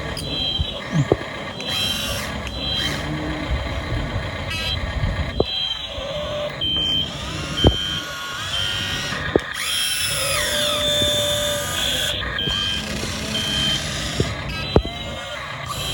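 Radio-controlled model excavator working. Its motor and hydraulic pump whine, rising and falling in pitch as it moves. A short electronic warning beep repeats at a steady pace, and a few sharp knocks come through.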